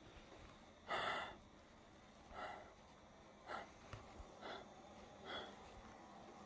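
A person breathing in short breaths, roughly one a second, the strongest about a second in.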